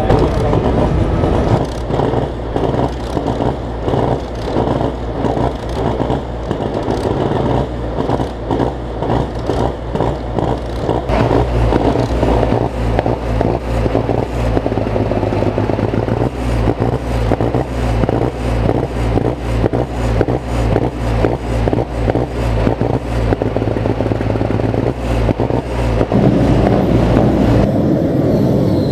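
Loud engine of a truck or tractor pulling vehicle running steadily with a rapid pulsing beat. The sound changes character about 26 seconds in.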